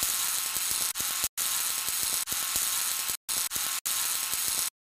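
Logo-animation sound effect of lettering being burned into wood: a hissing crackle with scattered small clicks. It is broken by a few short gaps and cuts off suddenly near the end.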